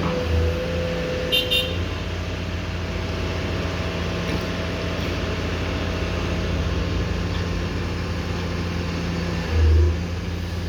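Komatsu PC210-10M0 hydraulic excavator's diesel engine running steadily, with a whine that stops after about two seconds. Two short high beeps come about a second and a half in, and a low thump near the end.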